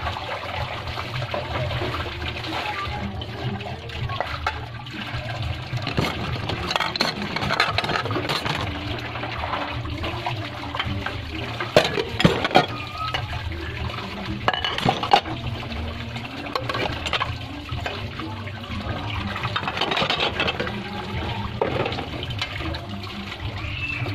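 Water running and splashing while something is washed by hand in a basin, with scattered clinks and knocks, a few sharper ones about halfway through.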